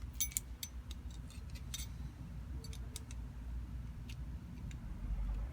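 Small metallic clicks and taps of a valve spring compressor and valve spring parts being handled and repositioned on a cylinder head, several in quick succession in the first two seconds, then sparser.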